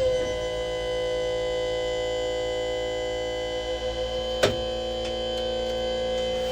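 Armoured vehicle's rear ramp mechanism running: a steady electric-hydraulic motor whine with one sharp click about four and a half seconds in. The listener takes it for the ramp of a Kirpi armoured vehicle.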